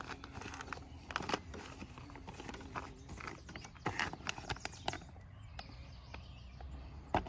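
A spoon stirring and scraping inside a crinkly meal pouch, an irregular run of clicks and rustles as hot water is worked through freeze-dried food to break up dry pockets.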